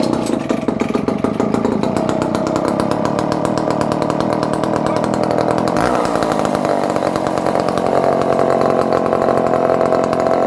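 Dolmar 118 Super two-stroke chainsaw, an old barn find being revived, coming in suddenly and running steadily. There is a brief change in its note about six seconds in.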